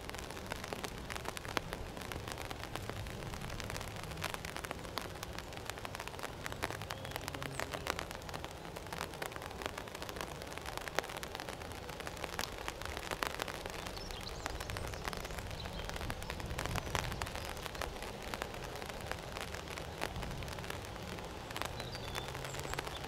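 Rain falling, with many small drop ticks over a low, steady rumble.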